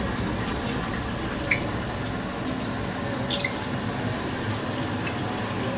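Chopped onions frying in hot oil in a kadai: a steady sizzle with a few sharp spits and crackles, one about a second and a half in and a small cluster around the middle.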